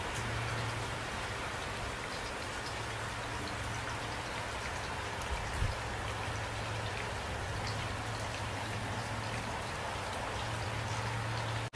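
Steady rain falling: an even hiss with scattered close drop ticks, and one brief low thump a little past halfway.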